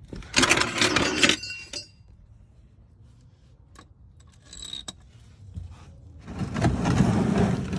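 Metal tools and parts clinking and clattering during work on the oil filter: a short burst of clatter about half a second in, a few lone clicks, then a longer, noisier bout of scraping and rattling near the end.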